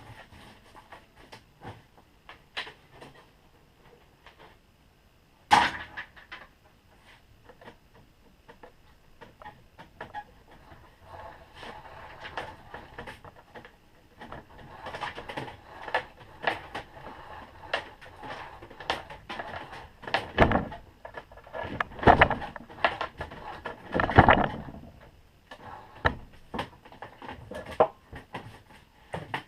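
Extension cord being worked through a vise-mounted wire stripper, with scraping and rustling as the cord is pulled and handled and irregular clicks and knocks. A sharp knock comes about five seconds in, and several louder knocks come in the last third.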